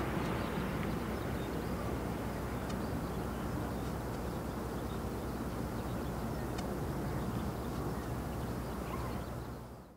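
Bombardier Dash 8 Q400 airliner's twin Pratt & Whitney PW150A turboprops and propellers giving a steady low drone as it climbs away after takeoff; the sound fades out near the end.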